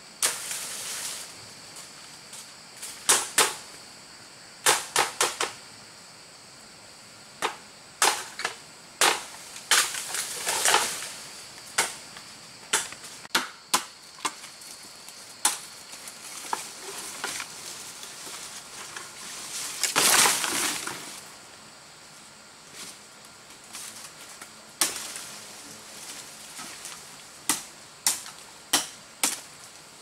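Irregular sharp knocks, some coming in quick pairs and triples, with a longer, louder noisy burst about two-thirds through. A steady high-pitched drone runs behind them.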